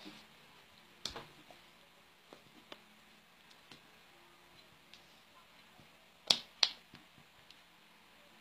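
Sharp hand slaps and claps as the hands strike each other while signing: a loud one about a second in, then two louder ones in quick succession near the end, with a few faint ticks between.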